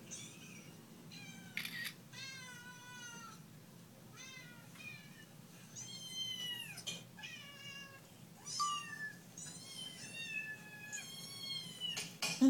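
Kittens meowing over and over, played through a computer's speakers: about a dozen high-pitched meows that rise and fall, some short and some drawn out for about a second. A short scuffing burst comes just before the end.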